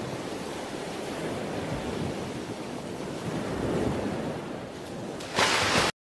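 A steady rushing noise with no tune or beat. It swells louder and brighter for the last half second, then cuts off suddenly.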